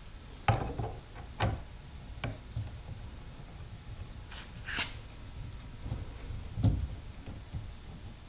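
Plastic mount parts being handled and fitted by hand onto the end of a telescoping monopod: a few sharp clicks and knocks in the first two and a half seconds, a short scrape just before five seconds in, and a low thump near seven seconds.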